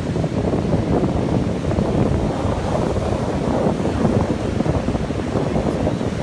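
Wind buffeting the microphone over the steady rush of ocean surf breaking on the shore.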